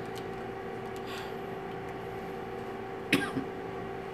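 Steady room hum with two steady tones, and a short sharp sound about three seconds in, followed by a smaller one.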